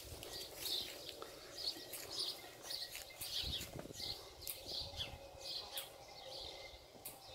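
Donkey grazing at close range, tearing and chewing grass: a steady rhythm of short crunches, about two a second.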